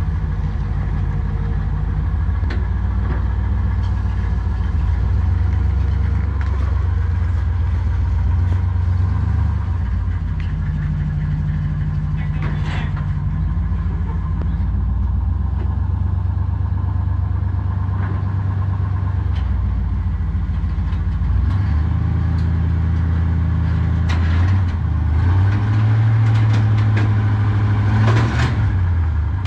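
1974 Chevy pickup's engine, running on gasoline through a Quadrajet carburetor, idling steadily. Its speed picks up a little about ten seconds in and again over the last several seconds.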